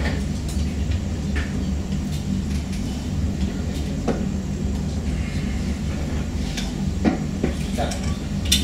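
Steady low room hum with a few light knocks and clicks: one about four seconds in and several in the last two seconds.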